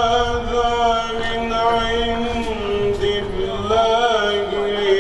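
A voice chanting long, held notes with a wavering, ornamented passage near the end, over a steady lower drone.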